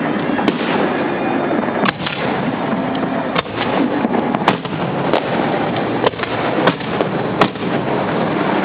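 Aerial fireworks display heard at close range from the launch barge: a dense, continuous crackle with sharp bangs from shells firing and bursting, about one every half second to second.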